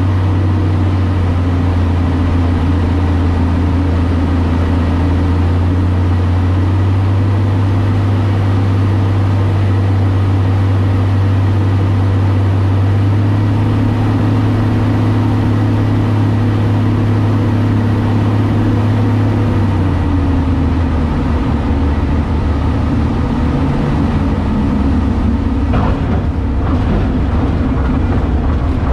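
Single-engine aerobatic plane's piston engine and propeller droning steadily, heard from the cockpit. About twenty seconds in the note drops as power comes off for landing, and it then runs lower and rougher, with a few short knocks near the end as the plane is on the runway.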